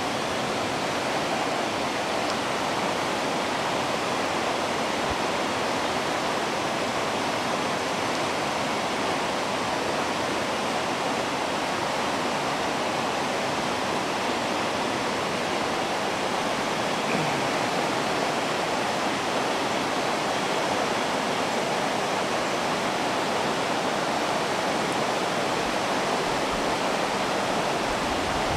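Fast river water rushing over rocks in rapids, a steady, unbroken noise.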